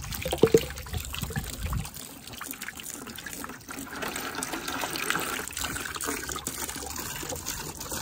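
Water draining from a 6-gallon Atwood RV water heater tank, pouring from a funnel in a steady stream and splashing into a bucket, with a couple of sharp knocks about half a second in.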